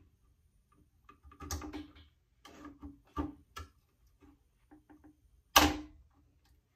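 Irregular small clicks and light clatter of tools and parts being handled on a workbench, with one louder knock near the end.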